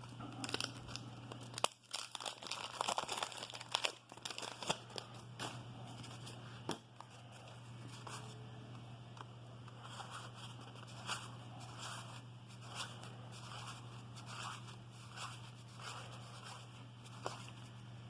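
A wax-paper baseball card pack being torn open and crinkled, dense crackling for the first few seconds, then cards being handled and flipped one at a time, a soft flick about once a second, over a low steady hum.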